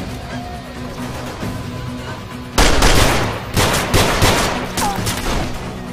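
Gunfire over steady, tense background music: a rapid volley of shots about halfway in, then several more single shots over the next two seconds.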